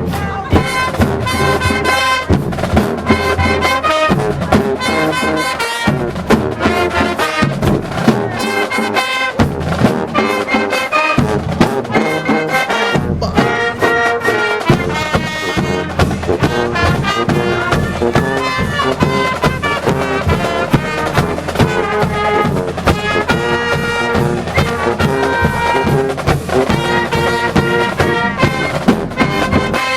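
High school marching band playing from the stands: trumpets and trombones carrying the tune over a steady beat of drum hits.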